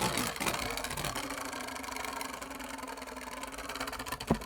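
A Beyblade Burst top spinning in a plastic stadium: a steady whirring hum with a fast rattle from the tip on the floor, slowly getting quieter, and a sharp knock near the end.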